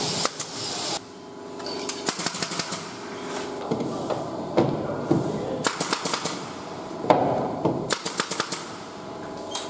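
Pneumatic nail gun driving nails into plywood facing boards in quick bursts of several shots each. A steady hiss cuts off about a second in.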